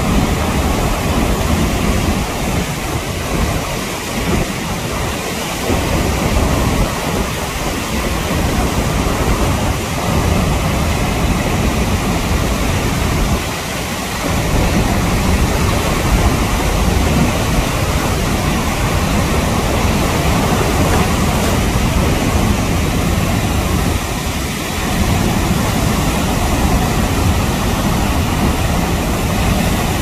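The Rhine Falls roaring close by: a loud, steady rush of falling water that fills every pitch, swelling and dipping a little now and then.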